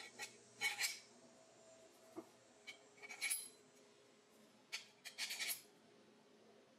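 Faint metal-on-metal clicks and light scrapes as steel knife-guard pieces and a thin spacer are slid onto and pressed down on a damascus blade's tang, in a few short clusters.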